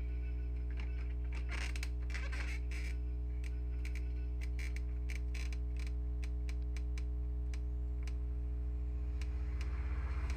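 Steady electrical hum, with scattered small clicks, taps and a brief rustle of parts being handled, which thin out in the second half.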